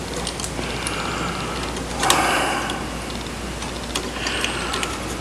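Clicks and rustling handling noise as chips are worked in and out of the BoxMotor pulse motor's circuit board during a continuity check, the sharpest clicks about two and four seconds in, over a steady low hum.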